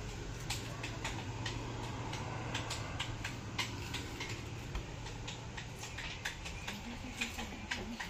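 Irregular light clicks and taps, a few each second, over a steady low hum: the room tone of a busy reading room.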